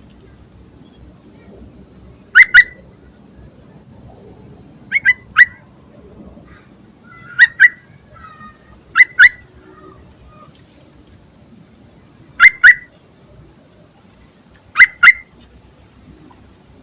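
Yellow-vented bulbul (trucuk) calling: six loud, short calls of two or three quick notes each, a few seconds apart. This is a female's call, the kind used to lure males.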